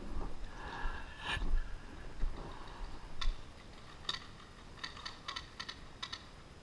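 Muffled rustling and knocks of handled gear, then a scattering of short, sharp clicks, several in quick succession near the end.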